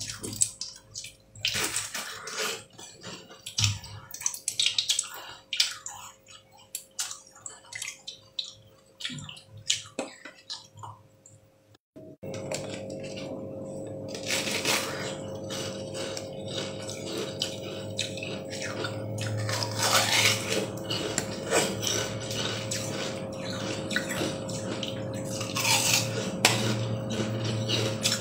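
Ice being bitten and chewed: rapid sharp cracks and crunches as green-coated ice chunks break in the mouth, with a steady hum underneath that drops out briefly about halfway and returns louder.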